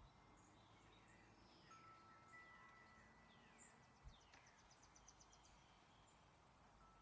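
Faint birdsong: several birds giving short falling chirps, with a quick high trill about halfway through, over a soft background hiss.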